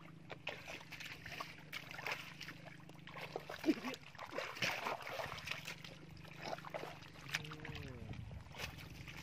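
Bare feet squelching and splashing through shallow muddy water, with scattered sharp clicks and slaps of mud, over a steady low hum.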